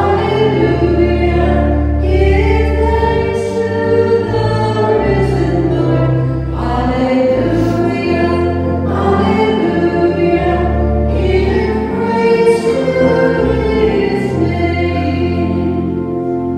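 Church hymn sung with instrumental accompaniment, long held bass notes under the voices; by its place at the opening of Mass, it is the entrance hymn.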